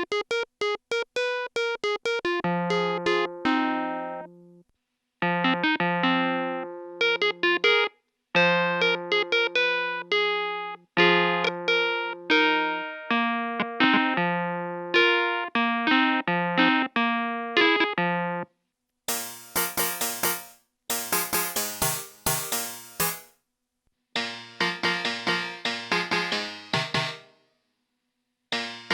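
Digital synthesizer playing quick, fast-decaying plucked notes in short melodic phrases with brief pauses between them. About two-thirds of the way in the patch turns much brighter and noisier, still in short phrases.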